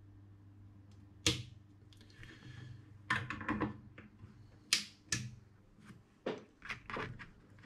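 Irregular sharp clicks and light taps, about a dozen, from hand tools being handled at an electronics workbench.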